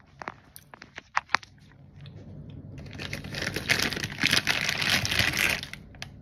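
A few light clicks, then about three seconds of loud crinkling, rustling noise close to the microphone, which stops near the end.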